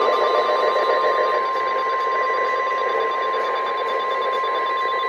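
NOAA Weather Radio warning alarm tone, a single steady 1050 Hz tone heard through a weather-radio receiver with a hiss of static behind it; it signals that a warning broadcast is about to follow.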